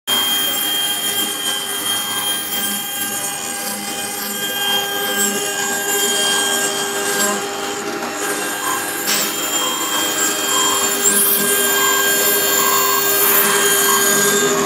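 CNC engraving machine's spindle running with a steady whine while its bit grinds into a wet green stone. A rasping, scraping noise runs under the whine.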